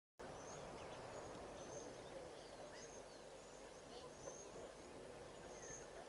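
Faint outdoor bush ambience: a steady low hiss, with small birds giving short high chirps and brief whistles every second or so.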